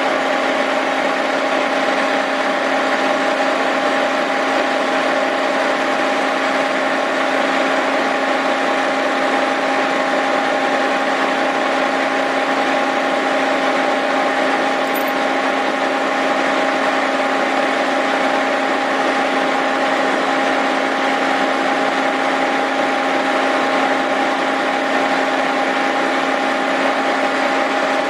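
Cincinnati milling machine running steadily with an 8-inch face mill spinning, taking a light two-thousandths skim cut across a Willys L-134 flathead cylinder head. It is an even machine hum with a few held tones and no change in level.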